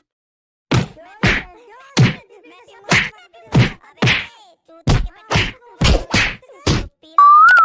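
A run of about eleven sharp whacks, like slaps, roughly half a second apart. Near the end a whistle starts, rising and then warbling up and down.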